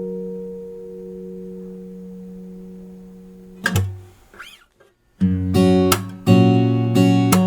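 1970s Morris W-20 acoustic guitar: a chord rings out and slowly fades, one short stroke, a brief pause, then loud strummed chords from about five seconds in.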